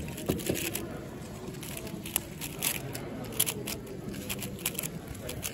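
A 4x4 speed cube being turned fast by hand: its plastic layers click and clack in quick, irregular runs.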